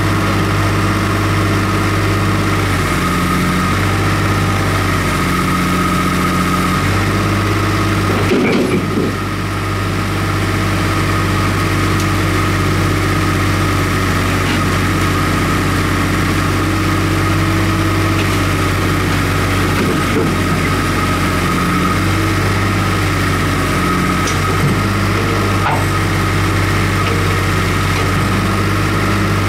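Komatsu PC50UU mini excavator's engine running steadily, its note shifting several times as the machine is worked on a truck's loading ramp, with a single clunk about eight and a half seconds in.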